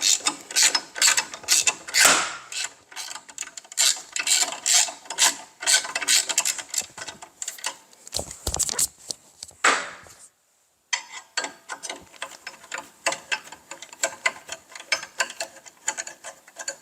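Ratchet with a T27 Torx bit clicking in quick runs of back strokes while a tight screw is backed out. The sound cuts out briefly about ten seconds in.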